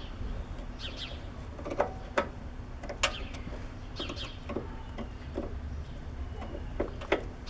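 Scattered small clicks and taps of a screwdriver and metal parts while the screws on a snowblower carburetor are tightened. A bird chirps twice in the background, about a second in and about four seconds in.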